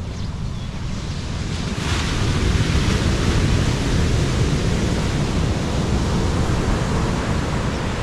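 Surf breaking on a sandy beach, with wind buffeting the microphone; the noise swells louder about two seconds in.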